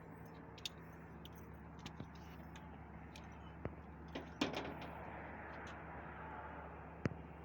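Light clicks and taps of tools and wiring being handled at an electrical connection, with a louder clatter about four and a half seconds in and a sharp click near the end, over a steady low hum.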